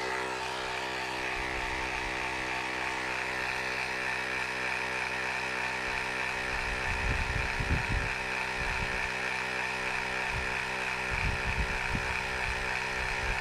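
Battery-powered Hamron portable tyre pump's compressor running steadily at an even pitch while inflating a soft ball towards a preset 0.3 bar, with a few low rumbles about halfway and near the end.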